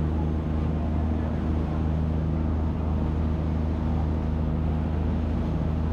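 Fishing charter boat's engine running steadily at an even pitch, a low constant drone.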